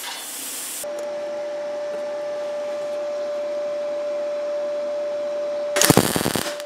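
A hiss stops abruptly just under a second in, giving way to a steady hum with one held tone from the welding setup. About six seconds in comes a short burst of MIG welding arc, about half a second long and the loudest sound here, as a tack weld joins sections of a steel wheel flange.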